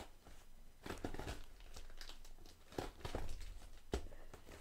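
Knife slitting the packing tape on a cardboard box: tape tearing and cardboard scraping and crinkling, with a few sharp clicks.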